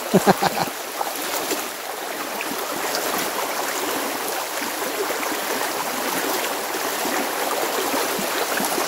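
Fast, rain-swollen creek water rushing steadily, with a brief louder burst of sound just after the start.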